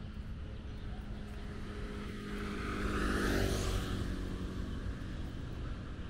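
A motor vehicle passing on the road, rising to its loudest about three seconds in and then fading, over a steady background hum of traffic.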